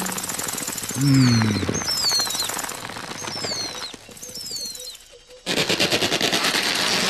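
Cartoon sound effects: a fast rattling clatter with high, falling bird-like chirps over it and a short low falling sound about a second in. The rattle fades for a moment in the middle, then returns loud near the end.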